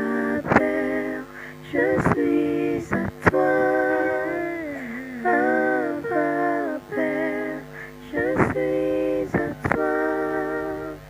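Music: a singing voice holding long, gliding notes over a steady low drone, with a few sharp percussive hits.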